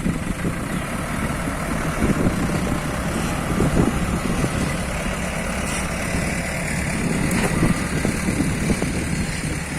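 Heavy diesel engines of a Kobelco excavator and a dump truck running steadily: a low rumble with small, uneven surges.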